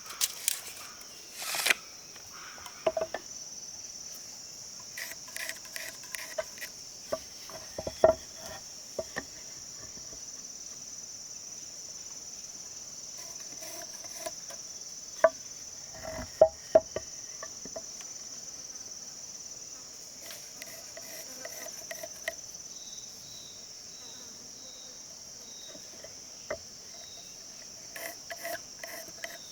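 Steady high-pitched chirring of insects, with scattered sharp knocks and clicks, the loudest about 8 seconds and 16 seconds in.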